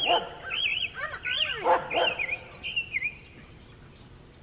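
Dogs barking and yipping, a quick string of high barks that dies away about three seconds in.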